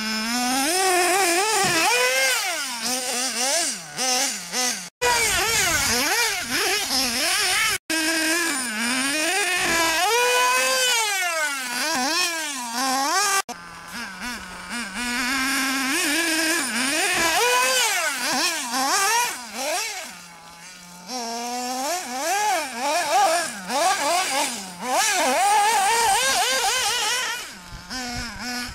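Hobao RC buggy's small nitro glow engine revving up and down over and over as it is driven. It drops back to a steady idle between bursts, and the sound breaks off abruptly a few times.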